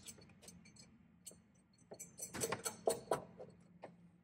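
Light metallic clicks and clinks as 13 mm nuts are fitted by hand onto the steel mounting studs of a boiler's plate heat exchanger. The clinks are scattered, with a quicker cluster about two to three seconds in.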